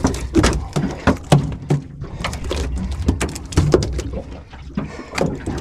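Irregular knocks and slaps, several a second, as a freshly landed dolphin fish (mahi-mahi) thrashes on the boat deck, over a steady low rumble.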